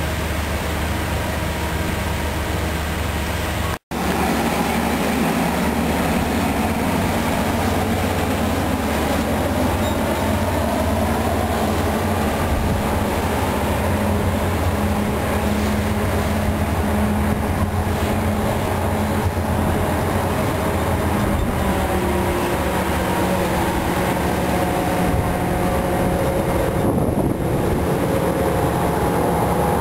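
Diesel locomotive engine running with a steady drone as passenger carriages are pushed slowly out of the station, rolling on the rails. The sound cuts out for an instant about four seconds in.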